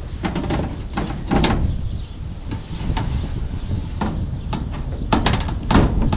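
Sheet-metal chimney roof flashing being shifted and pressed onto a ribbed metal roof: a series of irregular knocks and scrapes of metal on metal.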